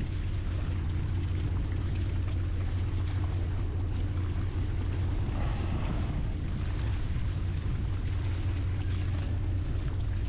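Whale-watching boat's engine running with a steady low hum, under the noise of wind and choppy water. A brief swell of higher sound comes a little past halfway.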